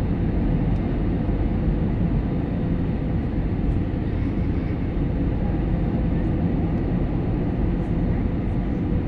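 Airliner cabin noise on the approach to landing: a steady, low rumbling drone of engines and airflow with a faint steady hum.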